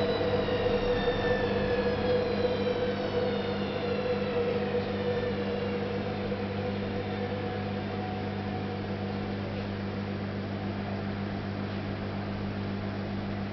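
Candy GO4 127 DF front-loading washing machine coasting down after a spin: the drum whine falls in pitch and the running noise of its loud, worn drum bearings slowly fades. A steady low hum runs beneath it.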